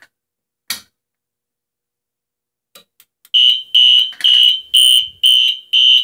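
A fire alarm pull station's handle is pulled with one sharp click. About three seconds later the fire alarm horns start sounding a loud pulsed tone, about two pulses a second, as the Simplex 4001 panel goes into alarm.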